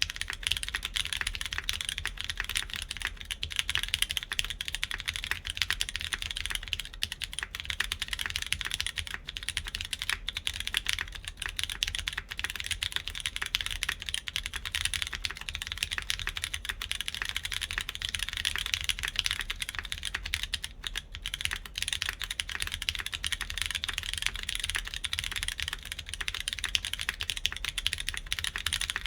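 Continuous fast typing on a mechanical keyboard with lubed Cherry MX Brown tactile switches in a full aluminum plate, a dense run of key clicks.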